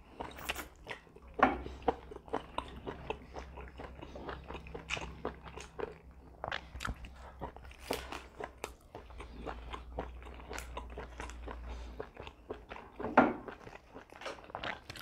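People eating roast chicken with their hands: chewing, crunching bites and wet clicks of meat being torn and picked. The louder crunches come about a second and a half in and again near the end.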